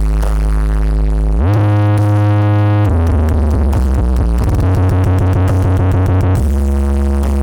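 Electronic sound-check music played through a large East Javanese 'sound horeg' system: long, very deep synth bass notes that step to a new pitch every second or two, with a sliding rise about a second and a half in and a choppy stretch near the middle.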